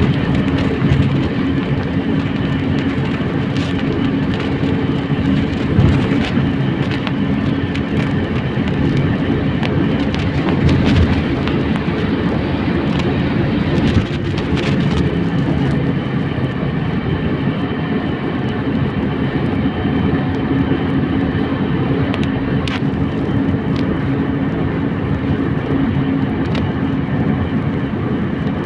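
Trolleybus interior while riding: a steady electric hum over road rumble, with scattered rattles and knocks from the body and fittings.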